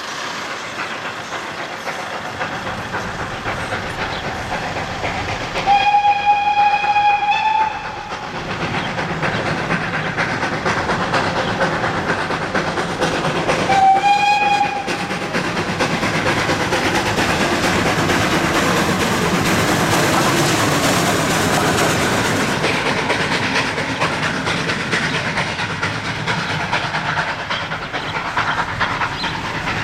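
Steam locomotive running past with a steady noise of the train throughout. It sounds its steam whistle twice: a long blast about six seconds in and a short one around fourteen seconds.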